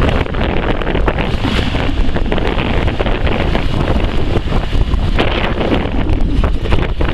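The International 345 V8 gas engine of a 1979 International 1624 dump truck running steadily, largely covered by heavy wind buffeting the microphone.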